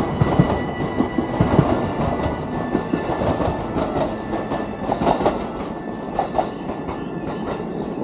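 E233-series electric commuter train running past, its wheels clicking over the rail joints, gradually fading as it moves away.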